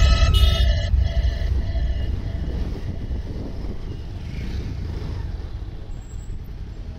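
Background music fades out in the first second, leaving the low, steady rumble of a motorcycle being ridden, which slowly gets quieter.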